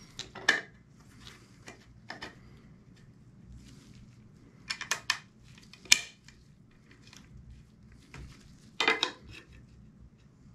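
Clicks, clacks and light scrapes of inline skate wheels and metal axles being fitted into a metal skate frame, a handful of short knocks scattered through, the sharpest about six seconds in.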